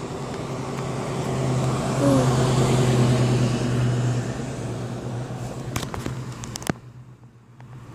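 An SUV driving past on the street: its engine hum and road noise swell, peak about two to four seconds in, then fade away. A few sharp clicks follow near the end.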